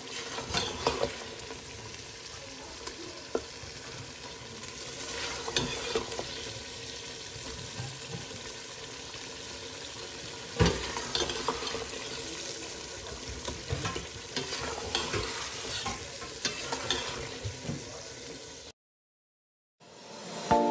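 Beef and spices bhuna-frying in a stainless steel pot, sizzling steadily while a slotted steel spatula stirs and scrapes against the pot. There is one louder clank of the spatula on the pot about halfway through.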